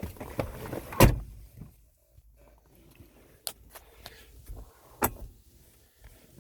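Handling of a Mercedes W123 power-window switch and its plastic parts: a sharp knock about a second in, then quieter rustling with two short clicks.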